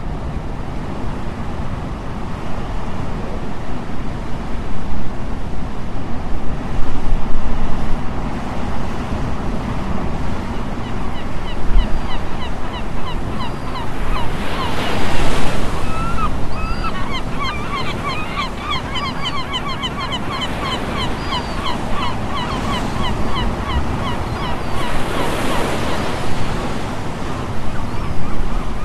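Surf washing ashore with wind on the microphone; a wave breaks loudly about halfway through and another near the end. From about a third of the way in, birds call over the surf in many short, rapidly repeated calls.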